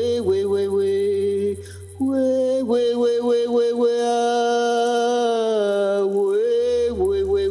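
A woman singing a Mapuche chant unaccompanied, holding long notes of a second or two each and gliding between them, with short breaths in between. A low steady hum sits under the voice at the start and again near the end.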